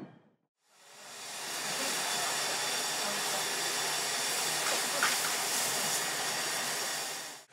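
Steady hiss of steam from a stationary LNWR 'Coal Tank' 0-6-2T steam locomotive, fading in about a second in and cutting off just before the end.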